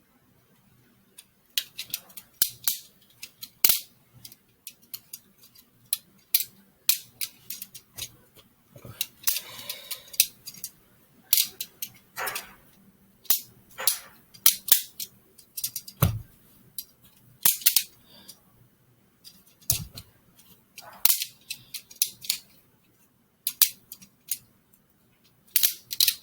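Homemade Lego balisong being flipped: irregular sharp plastic clicks and clacks as the handles swing open and shut, in quick runs with short pauses.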